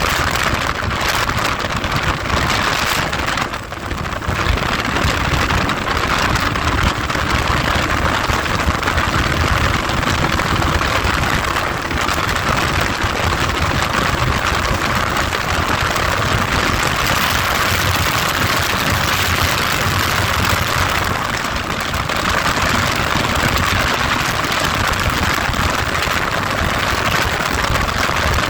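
Heavy wind noise buffeting the microphone while riding, a loud, steady rush that dips briefly about four seconds in.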